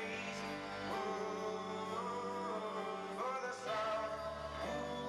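Slow song: a sung melody of long held notes that glide between pitches, over sustained instrumental chords.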